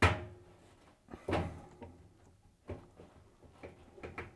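Knocks and clunks from a tumble dryer's drive belt and the hands working it being pulled off the motor pulley against the machine's metal and plastic parts: one sharp knock at the start, another about a second and a half in, then several lighter ones.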